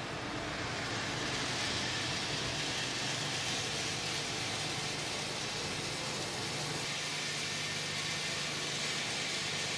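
Plastic pelletizing line running: a steady machine hum with an even hiss over it.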